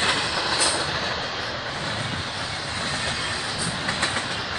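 Freight cars of a BNSF intermodal train rolling past at close range, flatcars carrying truck trailers: a steady rumble and rattle of steel wheels on rail, with a few faint clicks.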